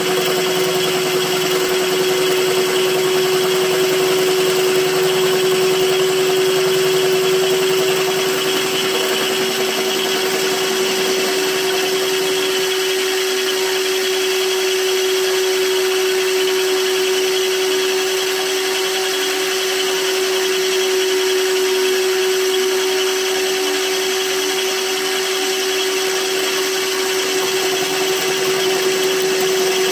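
Electric-motor-driven line-boring bar turning in the cast-iron bearing bore of a windmill head, taking a rough cut: a steady machine hum with a strong constant tone. A lower rumble drops away about twelve seconds in.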